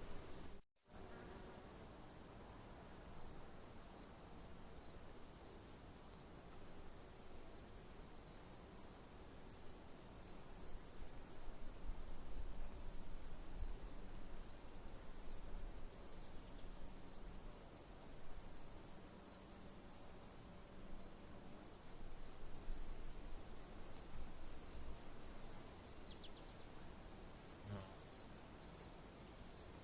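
Night chorus of crickets: a steady high-pitched trill with rapid, evenly repeating chirps running beneath it. The sound cuts out briefly just under a second in, then carries on.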